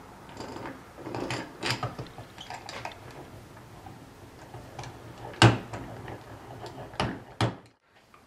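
Steel parts of a 1940 Hercus lathe saddle clicking and knocking together as the cross-slide feed screw and its bracket are fitted by hand. A handful of sharp knocks, the loudest about five and a half seconds in and two more shortly before the sound cuts off near the end.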